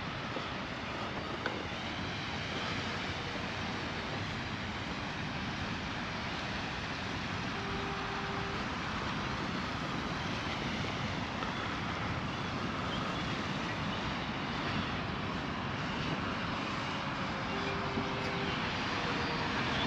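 Steady rushing noise of ocean surf and wind, slowly growing a little louder.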